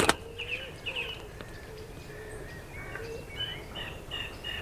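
Small birds in the trees calling in short, repeated chirps, coming faster and more regularly in the second half, over a lower wavering note. A single sharp knock right at the start.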